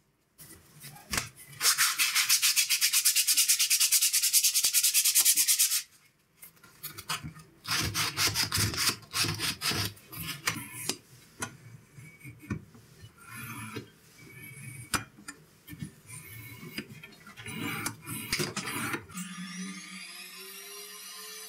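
Rubbing and rasping on plywood by hand: a loud continuous rasping for about four seconds, then a run of short, irregular strokes. Background music comes in near the end.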